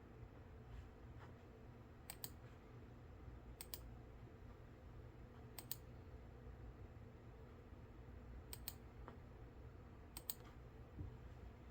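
Computer mouse clicking, five times at uneven gaps of a second or two, each click a quick pair of ticks. A low steady hum lies underneath.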